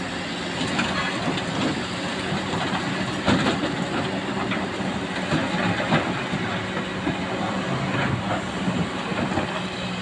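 Excavator's diesel engine running steadily, with a few irregular metallic clanks and knocks from the machine at work.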